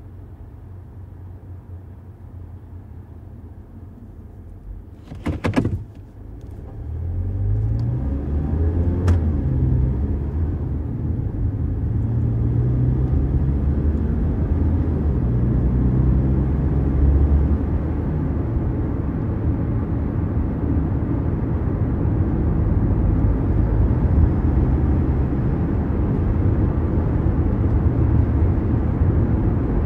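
Mazda CX-5 heard from inside the cabin: a short clatter about five seconds in as the engine is started, a quick rise in engine pitch as it catches, then the engine running with a steady low rumble that slowly grows louder.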